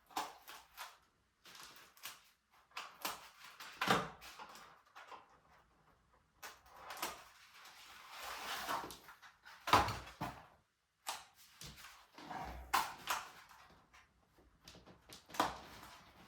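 Packing material being pulled off a new mountain bike's fork by hand: irregular rustling and scraping, with scattered clicks and a few sharper knocks, the loudest about four and ten seconds in.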